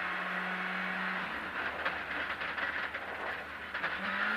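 Skoda Fabia R5 rally car's turbocharged 1.6-litre four-cylinder engine running hard, heard from inside the cabin, then cut back about a second in as the car slows for a left-hand bend on gravel. While off the throttle there is a run of sharp clicks and crackles, and the engine picks up again, rising, near the end.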